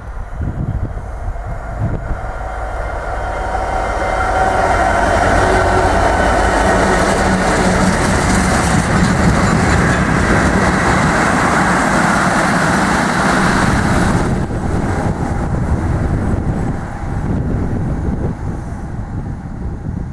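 Class 66 diesel-electric freight locomotive, with its two-stroke V12 engine, passing close while hauling two Class 37 diesel locomotives, with wheels running over the rails. The sound grows over the first few seconds as the train approaches, stays loud while the locomotives go by, and drops off about fourteen seconds in as they pull away.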